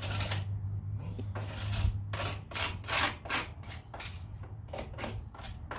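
Stiff scrub brush scrubbing stacked stone in quick back-and-forth strokes, about two to three a second, washing grout residue off the stone face.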